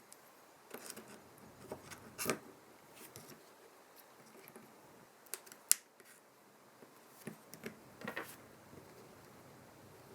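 Scattered small clicks and taps of tools and phone parts being handled during an iPhone 7 battery replacement, with one sharp click near the middle.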